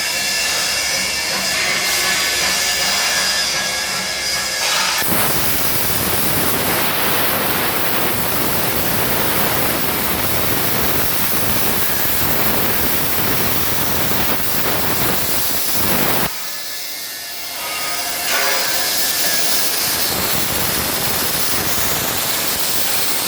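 CNC plasma cutter torch arc cutting, a loud steady hiss. It starts about five seconds in after a thinner hiss with faint whining tones, stops for a couple of seconds about eleven seconds later, then starts again.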